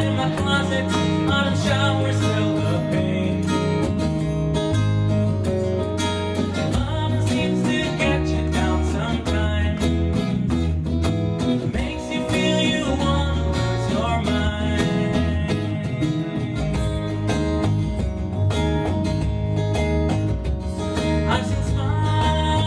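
Folk band playing: strummed acoustic guitar, electric bass and bodhrán frame drum, with a man singing lead.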